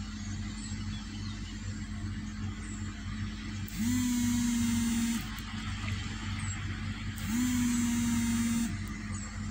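A small motor spins up quickly to a steady whine and runs for about a second and a half, twice, about three and a half seconds apart, over a steady low hum.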